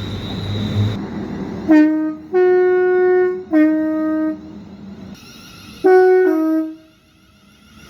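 Train's two-tone horn sounding after a second or so of train rumble: a short low note, a long high note, a low note, then a quick high-low pair near the end.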